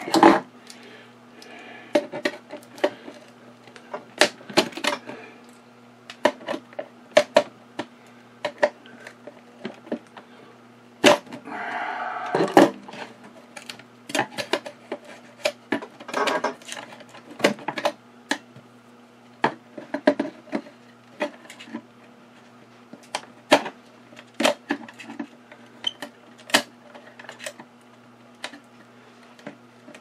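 Slim steel tool clicking, tapping and scraping against a metal latch plate and its rivets as they are pried up from a wooden case: scattered sharp clicks with a longer scrape a little before the middle.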